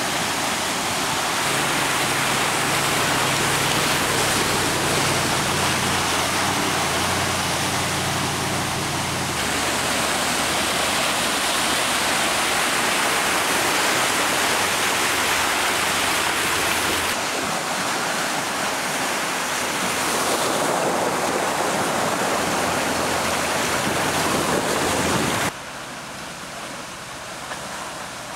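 Muddy water rushing and splashing as a 2014 Range Rover Sport wades through a flooded stream, with the engine's low steady hum under it for the first several seconds. The rush drops to a quieter level near the end.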